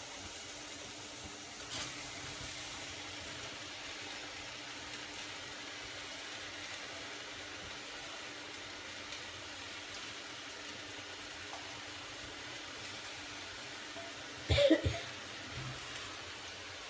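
Okra frying in a kadai, a steady faint sizzle, with one brief loud knock near the end.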